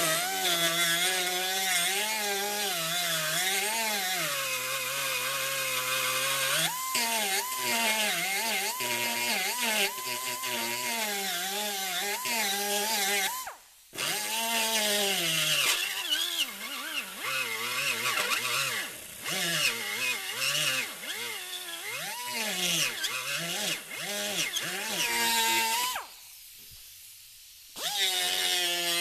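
Handheld pneumatic die grinder with a deburring bit grinding the freshly cut metal edges of a running board, taking off burrs and rounding the corners. Its whine wavers in pitch as the bit bites and eases off. It stops for a moment about halfway, and for nearly two seconds near the end, then starts again.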